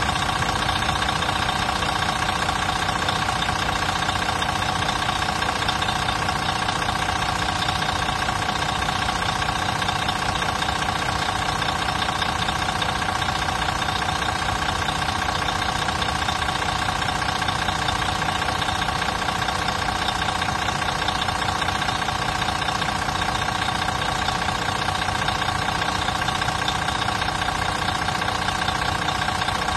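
Van Hool T915 Atlino coach's rear-mounted diesel engine idling steadily, heard up close at the open engine bay, with a steady high whine over the low rumble.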